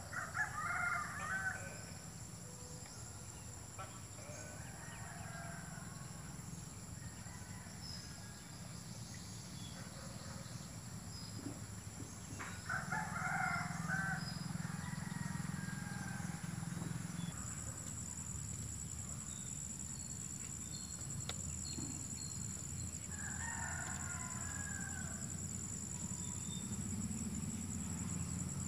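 A rooster crowing three times, about ten seconds apart, over a steady high insect drone that turns to a pulsing trill partway through.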